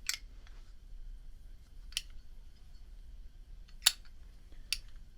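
Four sharp, separate clicks, one to two seconds apart, as Zippo Blue butane lighters and a butane insert are handled.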